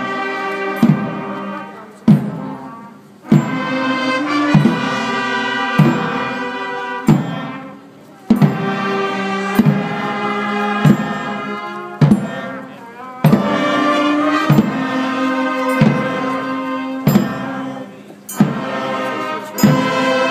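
Marching brass band of trombones, saxophones and trumpets playing a slow procession march in sustained chords. A drum strikes the beat about once every second and a quarter, and the phrases break off briefly every five seconds or so.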